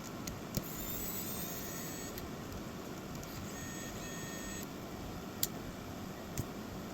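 Steady background hiss with three sharp small clicks, about half a second in, past five seconds and near the end, and faint high-pitched tones in between.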